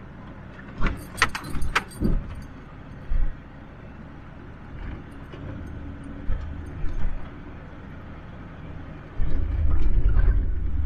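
2015 Ford Ranger 2.2-litre turbo-diesel pickup driving over a rough gravel track: a steady low hum of engine and tyres, with a quick cluster of sharp rattles and knocks about a second in and a louder low rumble of the truck bouncing over bumps near the end.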